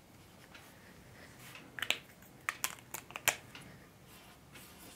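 Dry-erase marker on a whiteboard, a cluster of sharp taps and short squeaky strokes between about two and three seconds in as letters and an arrow are written.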